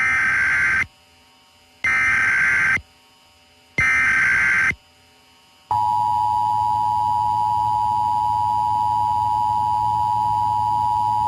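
Emergency Alert System alert tones: three short bursts of SAME header data, each just under a second long and about a second apart, then after a brief gap the steady two-tone EAS attention signal, which holds to the end. Together they mark the start of an EAS activation, here a live test.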